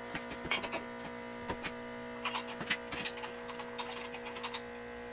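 Light, irregular clicks and taps of metal parts being handled on an electric motor, over a steady electrical hum.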